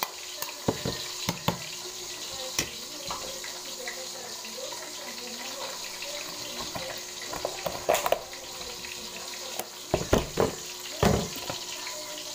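A spoon clinking and a ceramic bowl knocking on the counter, with a plastic bag rustling, over a steady hiss. The knocks come in a cluster about eight seconds in and again around ten to eleven seconds in.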